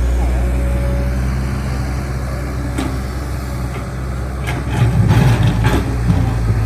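Excavator engine running steadily with a low hum. About four and a half seconds in comes a short burst of knocks and clatter, the loudest part.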